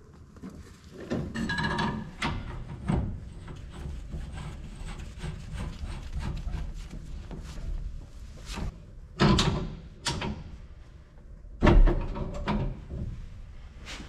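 Work noise on a gas furnace's supply piping: metal tools and fittings clanking and knocking as they are handled. Three louder knocks stand out, about a second in, about nine seconds in and, the loudest, near the end.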